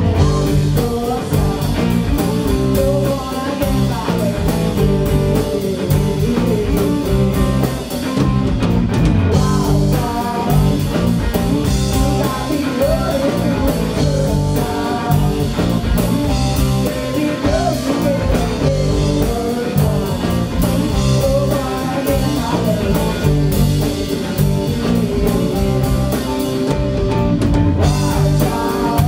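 Live blues-rock band playing: two electric guitars over a drum kit, with a woman singing.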